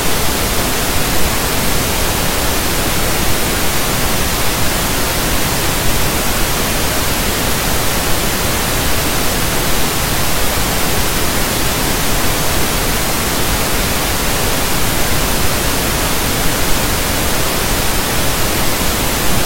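Steady, loud static hiss across the whole range from low to high pitch, unchanging throughout, with no other sound.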